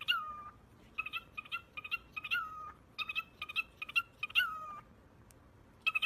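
Cockatiel calling in repeated phrases. Each is a quick run of short chirps ending in a longer whistled note that falls in pitch, about once a second, with a pause of about a second near the end.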